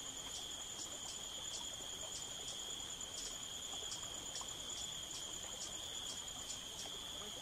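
Insects calling: a steady high-pitched trill with a fainter pulsing call about three times a second.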